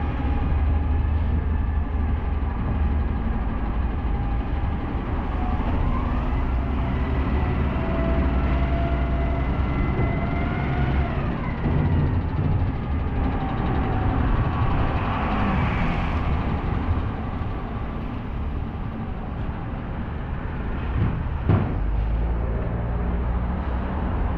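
Street traffic on a wet road, with heavy vehicle engines running. An engine whine rises, holds and falls back between about 6 and 12 seconds in, and a single sharp knock comes near the end.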